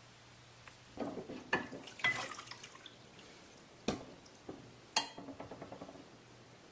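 Water sloshing and dripping in a plastic tub as a brazed steel tube frame is lifted out and handled, with two sharp knocks partway through.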